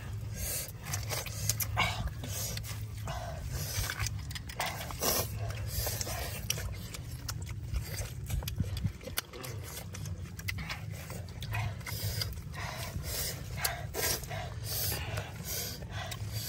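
Close, wet chewing and lip-smacking of people biting into barbecued pork leg held in their hands: a dense, irregular run of short smacks and clicks, over a steady low hum.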